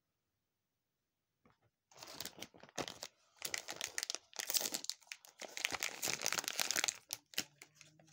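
Plastic wrapping of a gashapon figure crinkling and tearing as it is opened by hand. The crackling comes in bursts, starting about a second and a half in and stopping shortly before the end.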